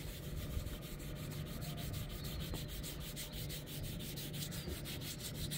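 Small sponge rubbing scratch-remover paste back and forth over car paintwork in quick, even strokes, several a second. The product is only filling the scratches with a white paste rather than removing them.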